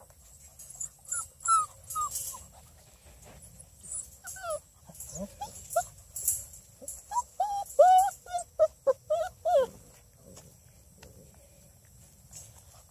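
Six-week-old redbone coonhound puppies giving short high-pitched cries. There are a few about a second or two in, then a busier run of them from about four to ten seconds in, then it goes quiet.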